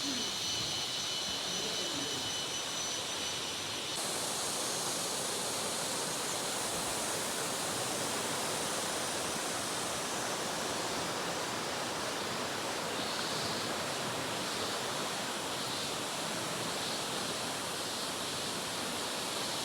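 Rushing river water, a steady even roar. For the first few seconds a high, thin insect-like trill sounds over it, and it stops abruptly about four seconds in.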